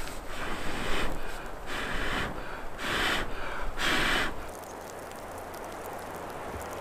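A person blowing on campfire embers to coax the fire up: about five short, hard breaths one after another. After them a soft steady hiss.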